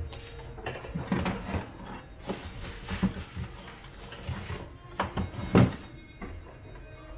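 Kitchen handling noises: scattered knocks and clicks, a brief hiss in the middle, and one louder knock about five and a half seconds in.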